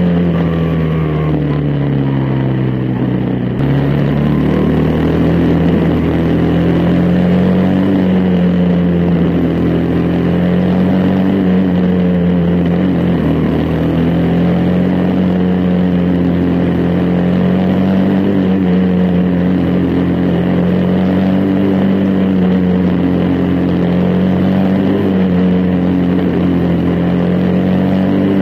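Onboard sound of a quarter midget's single-cylinder Briggs & Stratton Animal engine running hard at racing speed. Its pitch eases off and climbs back every few seconds, dipping most in the first few seconds.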